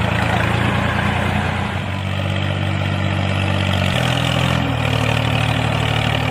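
Truck engine running steadily at a low pitch, the pitch shifting slightly about two seconds in and again about four seconds in.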